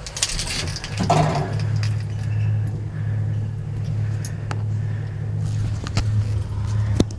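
Lift machinery running with a steady low hum that sets in with a louder rush about a second in, with scattered clicks and clatters over it.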